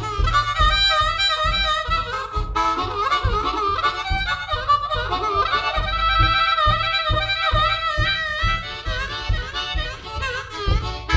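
Harmonica solo with wavering, bending notes, played over the band's acoustic backing, which keeps a steady beat.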